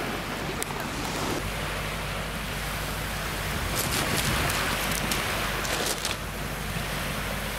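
Small waves of the Volga washing onto a pebble beach, with wind across the shore. A few short high clicks come about four to six seconds in.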